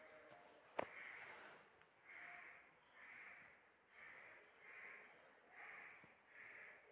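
Near silence: faint soft sounds repeating about once a second, with a single click about a second in.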